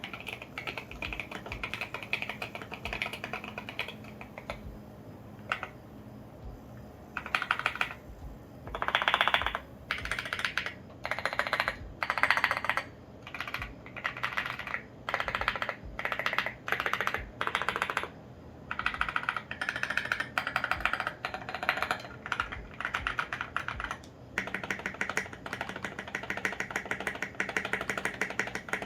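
Typing on a custom 65% mechanical keyboard with lubed and filmed Alpaca V2 linear switches, SA-profile ABS keycaps and a foam-dampened acrylic case. Rapid keystroke clacks come in bursts with short pauses.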